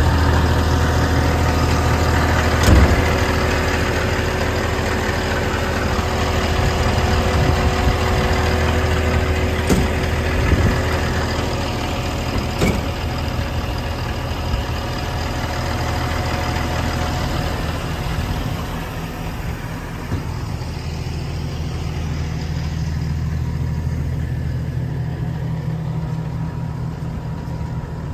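Doosan DX225LC-3 excavator's six-cylinder diesel engine idling steadily, with a few short knocks. The sound grows duller about two-thirds of the way through.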